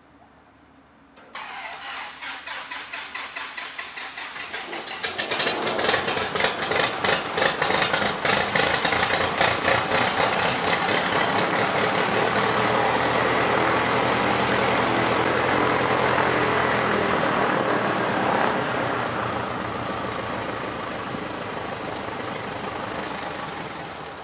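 Cessna Cardinal RG's four-cylinder Lycoming aircraft engine being started for its ground run after an oil change. The starter cranks with rapid regular pulses, the engine catches about five seconds in and runs steadily with the propeller turning, then eases down toward the end.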